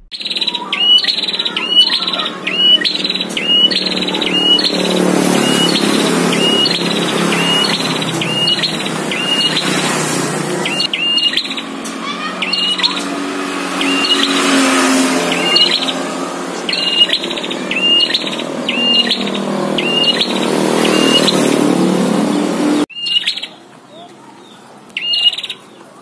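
Prinia (prenjak) calling: runs of sharp, repeated high chirps, about two a second. A steady background noise under them cuts off abruptly near the end.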